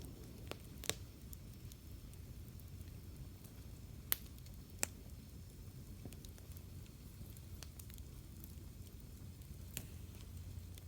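Wood campfire crackling: a few sharp pops from the burning wood, the loudest about one and four seconds in, over a low steady rumble.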